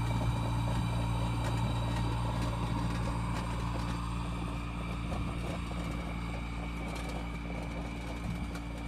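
Steady mechanical hum made of several fixed tones, growing slightly quieter over the stretch.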